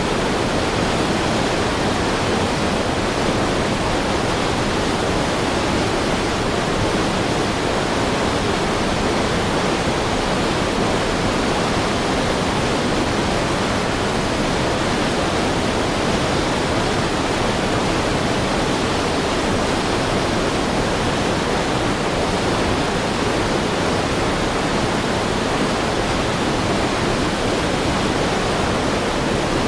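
Heavy river stream: fast water rushing steadily, a continuous full rushing noise without breaks or distinct splashes.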